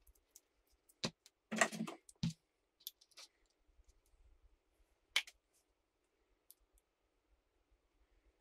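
Small parts of an RC car's center differential clicking and knocking as it is taken apart by hand: scattered sharp clicks and light knocks, several in the first couple of seconds and one more about five seconds in.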